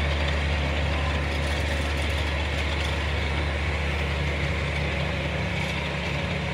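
Locomotive engine idling steadily: a low, even hum.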